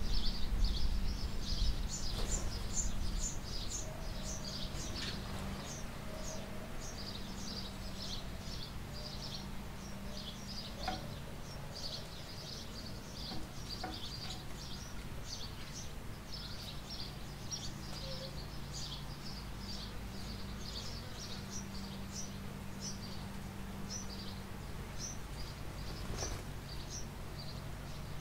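Many small birds chirping and twittering continuously, short high notes several a second, over a steady low hum. A low rumble is louder in the first few seconds and fades.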